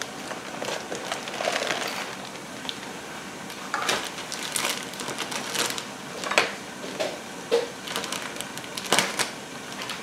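Plastic bag of rice being handled and opened by hand, crinkling and rustling, with scattered sharp clicks.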